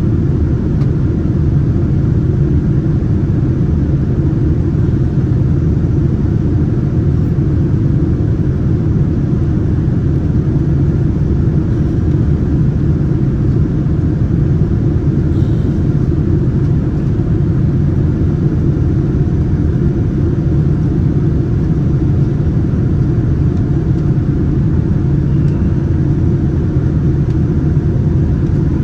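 Boeing 787 Dreamliner in flight heard from inside the passenger cabin: a steady, loud low rumble of engines and airflow.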